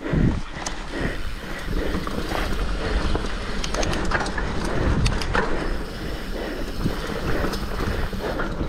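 Mountain bike riding down a rough dirt trail: the bike rattles and clicks over the ground, the freehub ratchet ticks, and tyre and wind noise rumble underneath.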